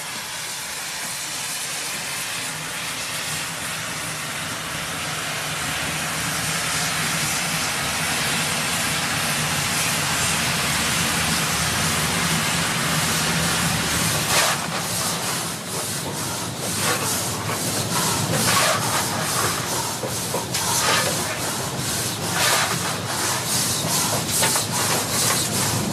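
Hungarian class 424 steam locomotive: a steady hiss of steam that grows louder, then from about halfway a run of uneven metallic knocks and clanks over the hiss.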